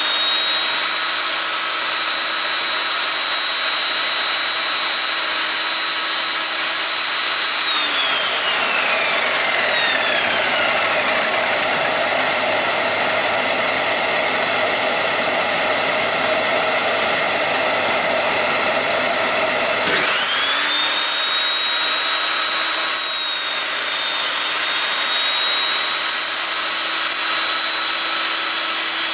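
Evolution Rage 5-S table saw's 1800 W motor running with a steady high whine, then switched off about 8 seconds in and winding down over a few seconds. A dust extractor's steady noise carries on alone until the saw starts again about 20 seconds in, rising back to a steady whine that begins to fall as it is switched off at the very end.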